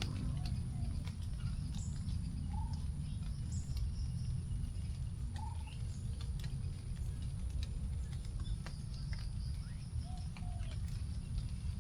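Last raindrops dripping from forest leaves after rain, as scattered light ticks, over a steady low background rumble. Birds call throughout: a short whistled note rising and falling about three or four times, and a few brief high chirps.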